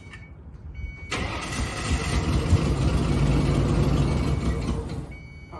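Ford OBS pickup engine cranking on its starter for about four seconds, starting suddenly about a second in and dying away near the end, during a start attempt on a freshly replaced fuel pump.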